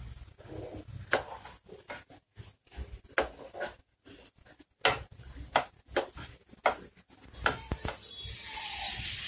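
Steel spatula scraping and tapping against a coated frying pan while stirring squid fry in a thick masala that is cooking down to dryness: a string of irregular clicks and scrapes. About eight seconds in, a steady sizzling hiss comes up from the pan.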